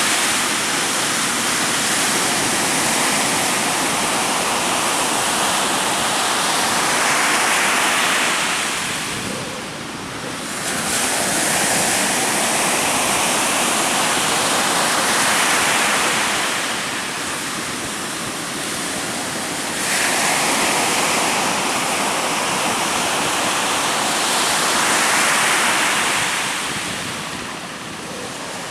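Heavy ocean surf in strong wind: a continuous wash of breaking waves that swells and eases in surges about every eight seconds.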